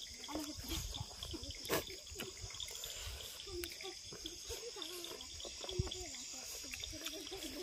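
Crickets and other insects chirping in a steady high chorus, over close-up eating sounds: chewing, lip smacks and fingers mixing rice on plates, with a few sharp clicks.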